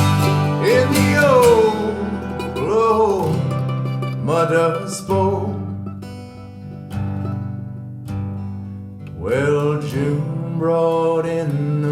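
Acoustic guitar music with a voice singing long notes that slide in pitch, with no clear words.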